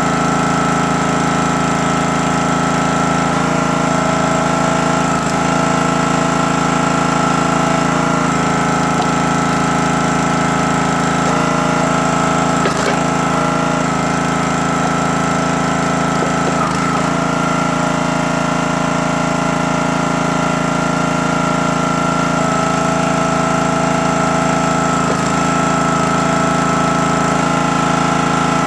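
Gas engine of a CountyLine 28-ton log splitter running steadily while splitting, its note shifting briefly every few seconds as the hydraulic ram cycles under load. One sharp crack about halfway through.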